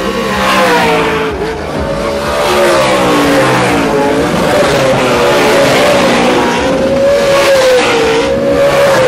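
Short-course off-road race trucks' engines revving as they pass on a dirt track, the pitch rising and falling over and over with the throttle.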